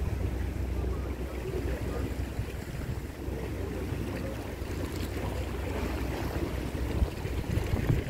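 Wind buffeting the microphone over a low, steady rumble.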